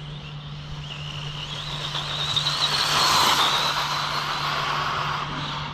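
Stretched Arrma Typhon RC car's Hobbywing Max6 brushless motor whining under throttle on 6S, the whine rising in pitch over the first couple of seconds, loudest about three seconds in, with tyre and road noise, then fading near the end.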